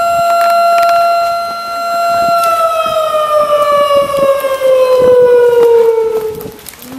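A siren wailing on one steady pitch, then winding down, its pitch falling slowly over the last few seconds. Scattered sharp clicks sound over it.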